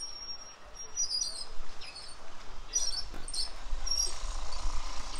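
Small birds chirping in short, irregular high calls, with a low rumble coming in from about halfway.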